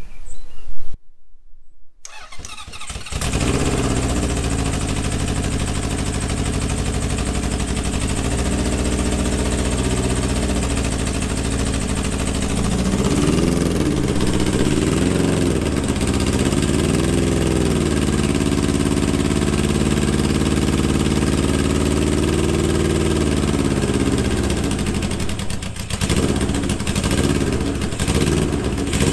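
A sharp knock in the first second, then a Honda CB750's inline four-cylinder engine running on its first start, which it takes easily on fuel. Its revs rise and fall several times in quick blips a while after it settles, with a brief dip near the end.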